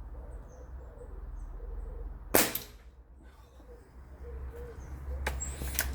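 Air rifle firing once about two seconds in, a sharp crack with a short ring after it, then two lighter clicks near the end.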